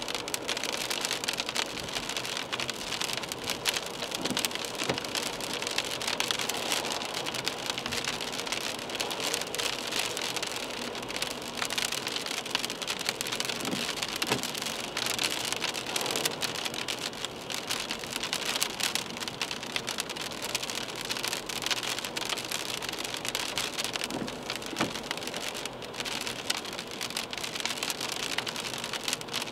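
Rain falling on a car's windscreen and body, heard from inside the moving car: a steady hiss scattered with many small drop ticks.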